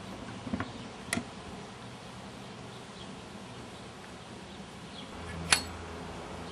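A few light clicks of a metal fork cutting into and lifting a cantaloupe slice, the sharpest about five and a half seconds in, over a steady background hum.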